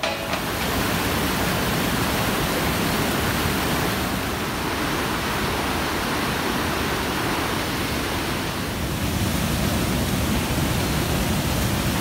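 Whitewater cascades and a tall mountain waterfall running high with snowmelt: a steady, full rush of falling water, shifting slightly in tone a couple of times.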